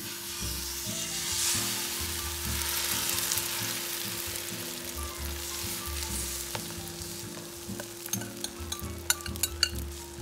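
Beaten egg with chopped vegetables poured onto a hot iron tawa, sizzling as it hits the pan and frying steadily while it is spread out. The sizzle is loudest about a second and a half in, and a run of sharp clicks comes near the end.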